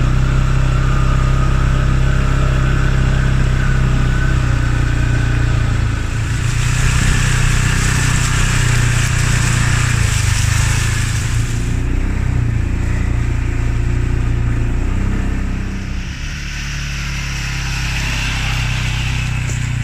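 All-terrain vehicle (four-wheeler) engine running steadily while being ridden, with a constant rushing noise over the engine note.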